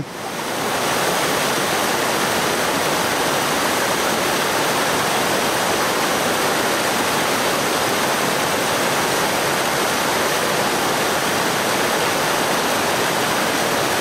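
River rapids: white water rushing steadily over rocks, an even roar that fades up over the first second and then holds level.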